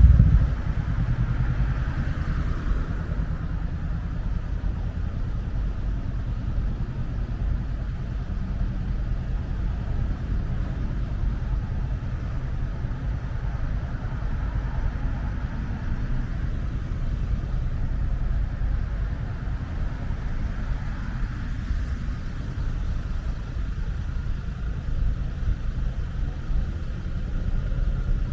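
Steady low rumble of city road traffic, cars running past on a busy street.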